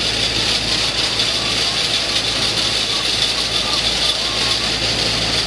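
A flock of laying hens calling with short, repeated notes over a steady hum and a constant high hiss, the continuous din of a poultry house.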